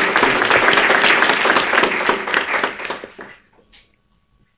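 Audience applause, many hands clapping together, dying away about three seconds in.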